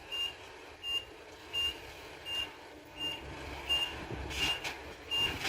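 Dump truck's reversing alarm beeping steadily, about one short high beep every three-quarters of a second, over the low running of the truck's diesel engine. A short hiss comes about four seconds in.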